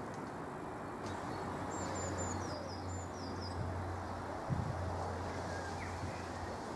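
Small birds chirping in short repeated notes over the steady low hum of a distant Great Northern Class 313 electric multiple unit approaching along the line.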